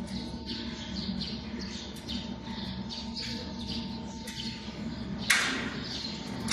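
A sheet-metal mounting panel is hooked onto a steel workstation frame, with a sudden loud clank about five seconds in. Before it, birds chirp in short high calls, two or three a second, over a steady hum.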